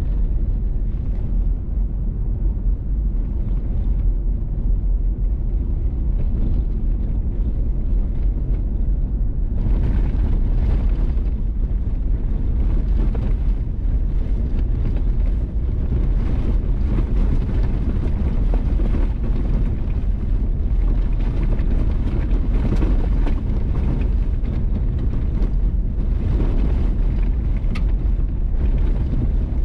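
Vehicle driving on a gravel road: a steady low rumble of tyres and running gear with wind buffeting the microphone. About ten seconds in, the noise turns brighter and hissier.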